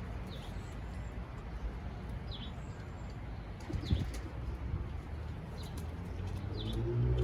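Pouter pigeons: a brief flutter of wings about four seconds in, and a pigeon starting to coo near the end. Small birds chirp faintly a few times.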